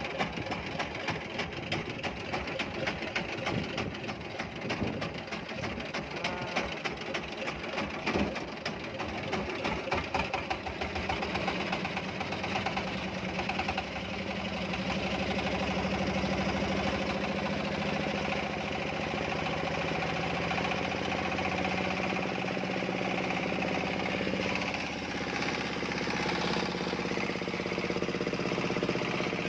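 Diesel boat engine knocking at idle, then opened up about twelve to fourteen seconds in to a louder, steady run.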